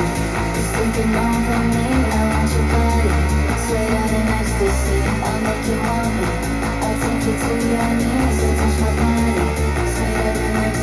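Rock music with electric guitar, drums and a heavy bass line, played back through a Soundcore Select Pro portable Bluetooth speaker during its sound test.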